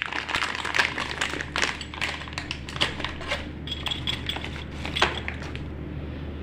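Handling noise from a 4-pole rotary changeover switch and its parts: quick runs of small hard clicks, clinks and rustles that thin out after about five seconds, over a steady low hum.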